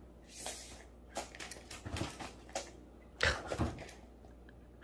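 Cat scrambling through a fabric play tunnel and onto the floor mat: rustling of the tunnel's nylon and a run of soft knocks, with two heavier thumps close together a little after three seconds in.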